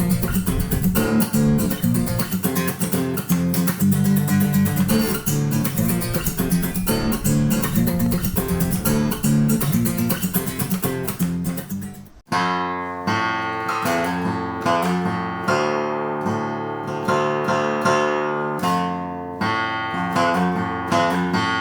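Background music led by acoustic guitar, a dense strummed passage that breaks off about twelve seconds in and gives way to a sparser section of clearly picked notes.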